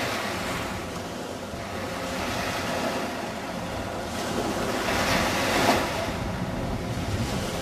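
Sea waves washing, mixed with wind buffeting the microphone; the wash swells around three seconds in and again around five seconds.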